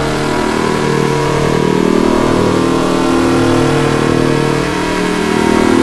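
Loud, heavily distorted electronic drone: a logo jingle's held chord warped by stacked audio effects into a steady, buzzy hum of several sustained low tones.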